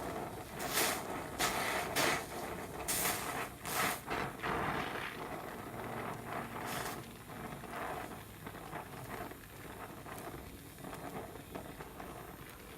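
Gas brazing torch flame hissing steadily as brass rod is melted onto a cracked steel tool part, with several short, louder surges of hiss in the first four seconds.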